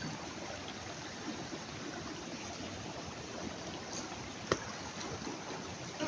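Shallow mountain stream flowing over pebbles and stones, a steady rush of running water. A single short click about four and a half seconds in.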